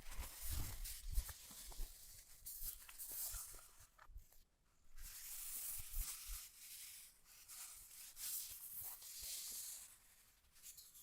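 Crinkly rustling of packaging being handled, coming in several swells, with a few soft knocks.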